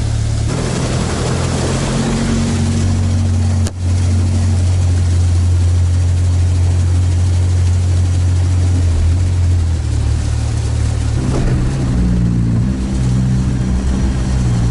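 All-terrain vehicle's engine running steadily as a loud, deep drone. There is a rush of extra noise in the first few seconds, a sharp click with a brief drop in level about four seconds in, and the engine's note shifts a little lower after about ten seconds.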